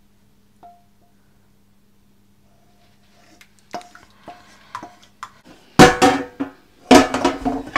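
A wooden spatula scrapes and taps against a metal pan as thick sauce is scraped into a bowl, making light clinks that ring briefly. About six seconds in, and again a second later, the pan clatters loudly on the gas hob.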